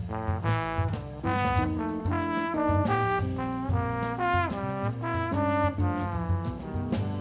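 Music: a horn melody of short, separate notes over a backing track with bass.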